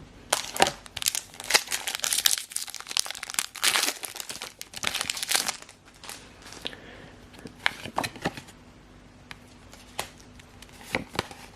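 Foil wrapper of a Pokémon booster pack being torn open and crinkled, a dense crackling for about five seconds. After that come a few scattered light clicks and taps.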